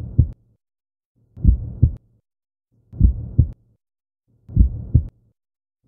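Heartbeat sound effect: slow, low double thumps (lub-dub), four beats about one and a half seconds apart, with a faint hum under each beat and dead silence between.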